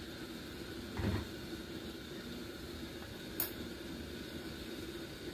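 A spoon stirring beans and water in an enamel pot, with a dull knock against the pot about a second in and a short sharp clink about three and a half seconds in, over a steady low hum.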